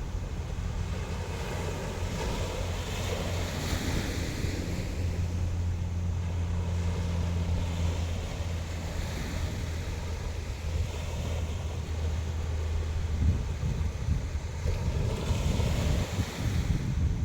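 Sea waves breaking and washing up the shore, the surf hiss swelling and falling away every few seconds, with wind buffeting the microphone as a low rumble that drops out about three-quarters of the way through.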